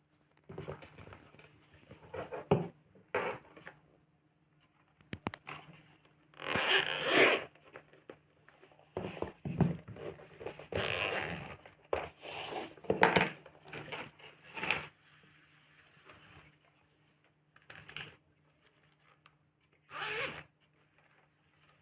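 Irregular rasping and rustling from handled items, with zipper-like pulls; the longest lasts about a second, a third of the way in. A faint low steady hum runs underneath.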